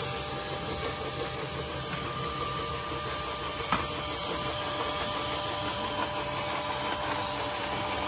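1/16-scale RC John Deere S690 combine model unloading grain, its small electric auger motor running as a steady whir with a steady hum. A single sharp click about three and a half seconds in.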